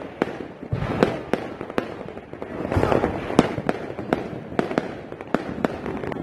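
Fireworks going off in many places at once: irregular sharp bangs, about two or three a second, over a continuous rumble of more distant fireworks.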